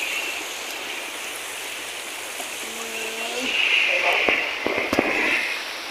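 Small waves washing onto a sandy beach: a steady rush of surf. A voice sounds briefly about three seconds in, and a few light clicks follow near the end.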